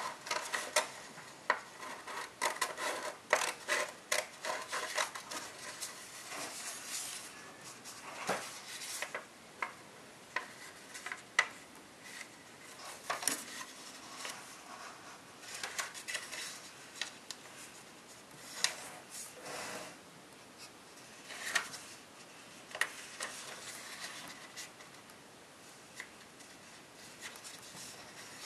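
Scissors cutting a sheet of copper tissue foil in the first few seconds, then hands folding and creasing the foil. The foil gives crisp crackles and rustles, thick at first, then scattered.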